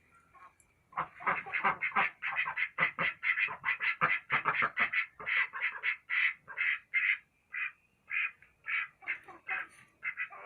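Ducks quacking in a fast run of short calls that starts about a second in and spaces out toward the end.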